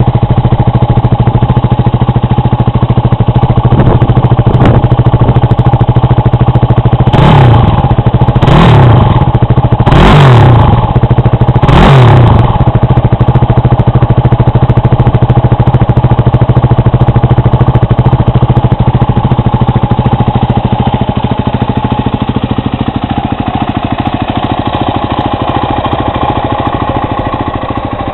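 Yamaha WR250R's single-cylinder four-stroke engine idling through an RC Koshien HITMAN aftermarket street muffler, with four quick throttle blips that rise and fall in pitch between about seven and twelve seconds in.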